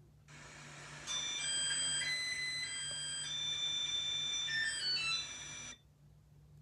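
Maytag MAH2400AWW washing machine's electronic end-of-cycle chime: a short melody of pure beeping tones that ends in a quick falling run, signalling that the wash cycle has finished.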